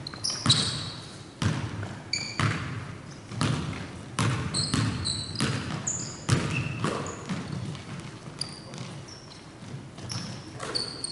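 Basketball bouncing on a hardwood gym floor in irregular dribbles, each bounce echoing in the hall, with sneakers squeaking on the court between them.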